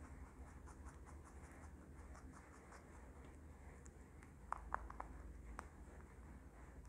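Rabbit chewing chopped carrot and lettuce: faint, quick crunching, with a few louder crunches between about four and a half and five and a half seconds in.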